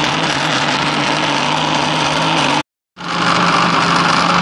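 Electric countertop blender running at full speed, grinding tomatoes, onions, garlic, ginger and green chillies with a little water into a wet paste. It is a steady motor whine with a low hum. It cuts out abruptly a little over halfway through, then runs on again a moment later.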